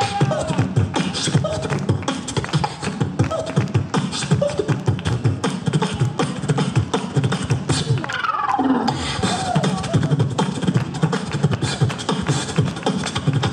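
Beatboxing into a handheld microphone, amplified: a fast, steady beat of deep thumps and sharp clicks. About eight seconds in, the beat briefly drops out under a falling vocal swoop.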